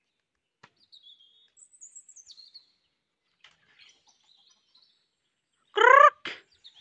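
Small birds chirping faintly, then near the end a loud, short squawk from a chicken (a harsh 'krrk'), followed at once by a shorter second note.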